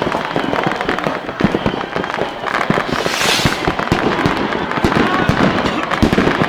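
New Year fireworks and firecrackers going off all around in a dense, irregular string of bangs and crackles, with a brief hiss about three seconds in.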